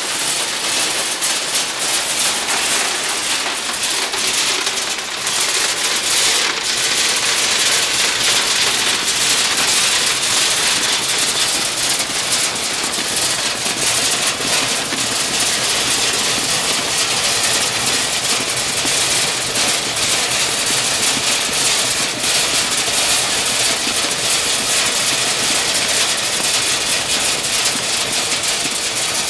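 Macadamia nut optical color sorter running: a steady dense hiss and rattle of many kernels clattering through the machine, packed with fine rapid clicks.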